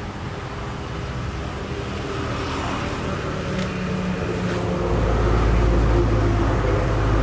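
A motor engine running with a steady low hum that grows louder about five seconds in, as if a vehicle were drawing closer.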